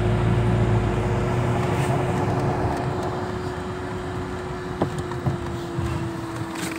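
Vehicle engine running steadily, with a held whine that sinks slightly in pitch. A low rumble under it weakens after the first second or so.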